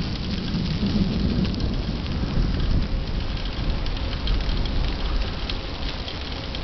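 Rain falling, with many small drop ticks close to the microphone, over a steady low rumble while riding a bicycle along a wet path.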